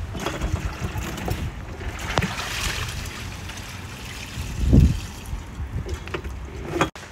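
Meltwater splashing out of a tipped chest freezer onto dry grass, under wind rumbling on the microphone. There is a low thump about five seconds in.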